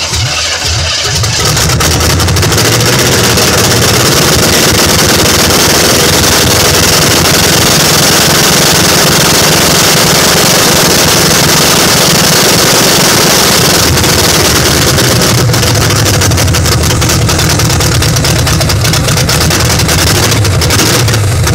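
Carbureted V8 with a Holley four-barrel carburetor running roughly, its throttle worked by hand at the carburetor so the rumble swells and dips. It is running lean, starved of fuel, and needs the throttle fed to keep going; the owner suspects the carburetor needs adjusting.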